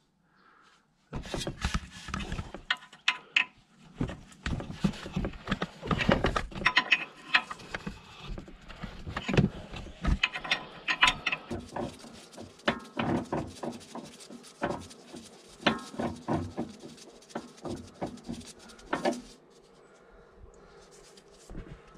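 Hand tools working on a car's steering tie rod: irregular metallic clicks, knocks and scrapes of wrenches and a ratchet on the tie rod end nut. They start about a second in and stop near the end.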